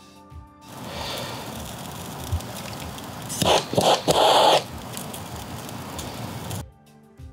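Hand-held gas torch hissing as its flame is played on a burning pine resin, sulfur, charcoal and animal fat mixture on water, with a louder rush of flame noise between about three and a half and four and a half seconds in. Background music starts and ends the stretch.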